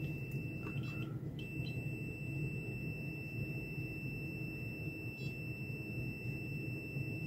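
Multimeter continuity beeper sounding a steady high-pitched tone while the two probe tips are held in contact, cutting out once briefly about a second in as the contact breaks, and stopping near the end.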